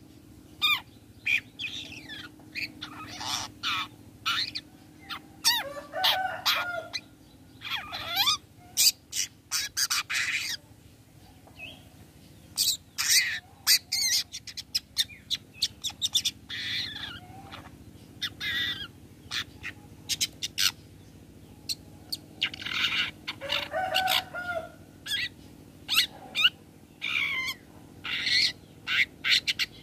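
Long-tailed shrike (cendet) singing in clusters of short, sharp, high calls with a few harsher, lower phrases, broken by brief pauses.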